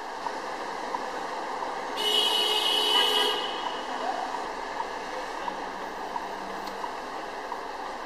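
A vehicle horn sounds once in traffic, a single blast lasting a little over a second, heard over steady traffic and engine noise.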